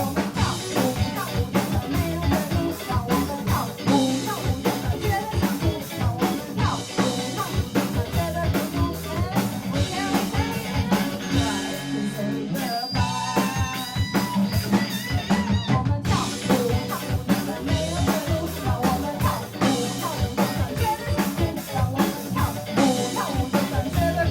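A rock band playing live, with a busy drum kit, guitar and bass.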